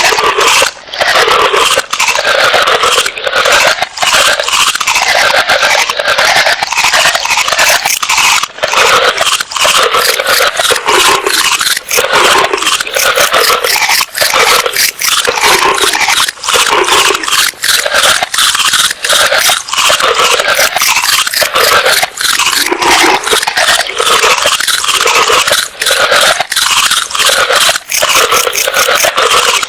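An animal chewing crunchy food close to the microphone: rapid, loud crunching, with a low vocal sound that rises and falls about once a second.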